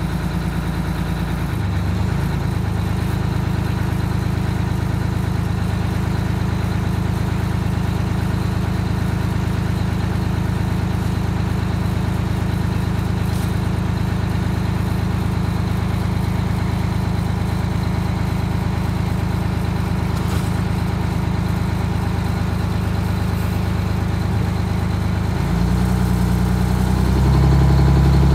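GMC PD-4104 bus's Detroit Diesel 6-71 two-stroke engine idling steadily. Near the end its speed rises in two steps to a faster, louder idle.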